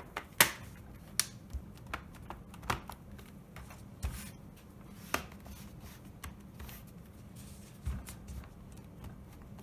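Plastic bottom cover of an Acer Aspire 3 A315 laptop being pressed back onto the chassis: a string of sharp, irregular clicks and snaps as its latches seat. The loudest comes about half a second in, with about eight snaps in all.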